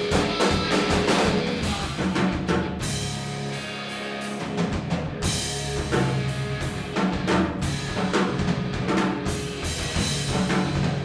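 Live rock band playing an instrumental passage without singing: a drum kit hitting hard over bass and guitar, thinning out briefly about two seconds in before the full band comes back.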